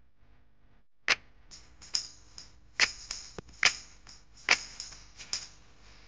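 A lovebird pecking and cracking seeds at a plastic feeding dish: sharp, irregular clicks of its beak, about eight of them after a quiet first second.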